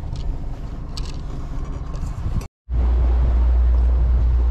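Motor boat's engine running with a steady low rumble and a few light clicks. After a brief cut just past halfway, a louder steady low rumble of the boat underway, with wind on the microphone.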